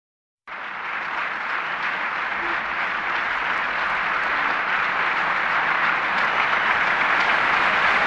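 Audience applauding: a dense, steady clapping that starts abruptly about half a second in and slowly grows louder.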